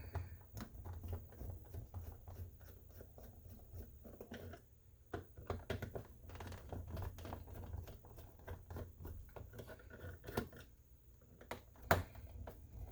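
Light, scattered clicks and taps of a plastic radio transmitter being handled, with one sharper click near the end.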